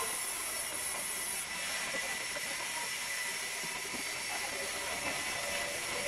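Sawmill machinery running with a steady, high hiss and a thin, steady whine.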